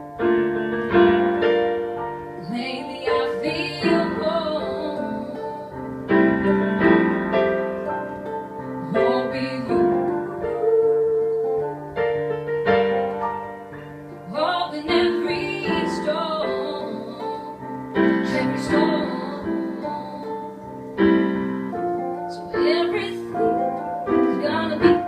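Live song with piano chords and a woman singing.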